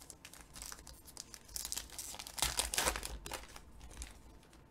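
Foil wrapper of a trading card pack being torn open and crinkled by hand, a run of crackles loudest in the middle.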